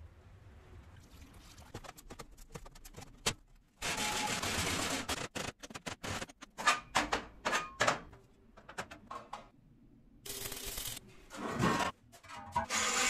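Workshop metalworking sounds cut together: scattered light clicks, then a loud rush of noise lasting over a second, then a fast irregular run of metal knocks and taps, another short rush of noise, and a heavy strike near the end.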